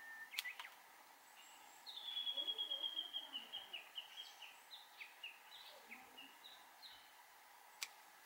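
Pruning shears snipping azalea twigs: two sharp clicks just after the start and one more near the end. In between, a songbird sings a fast trill of high notes, followed by a run of separate chirps that step down in pitch.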